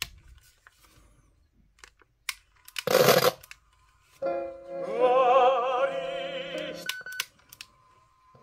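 A Sony Walkman plays music through a Sony SRS-T55 portable speaker: a wavering, vibrato singing voice with accompaniment comes in about four seconds in and stops near the end. Before it come a few sharp button clicks and a short loud burst of noise about three seconds in.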